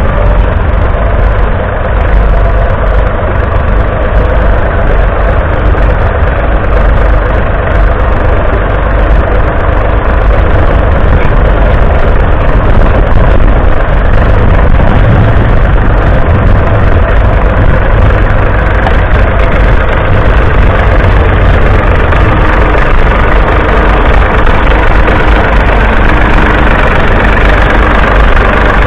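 Loud, steady running of a David Brown 770 Selectamatic's 2.4-litre three-cylinder diesel engine, heard close up, working under load as the tractor pulls a mounted plough through the soil.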